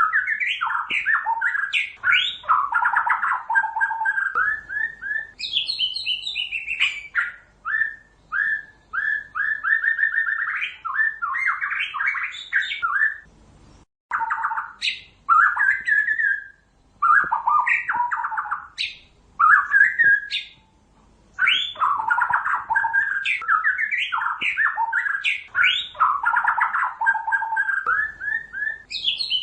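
White-rumped shama (murai batu) singing: fast runs of whistled and chattering notes in phrases a few seconds long, separated by brief pauses.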